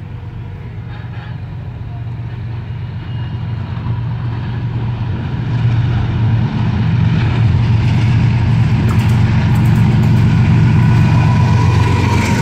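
GEU-40 diesel-electric locomotive hauling a passenger train, its engine's low rumble growing steadily louder as it approaches and draws alongside.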